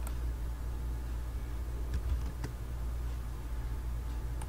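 Steady low electrical hum from the recording setup, with a few faint computer keyboard and mouse clicks spaced through it while a value is entered.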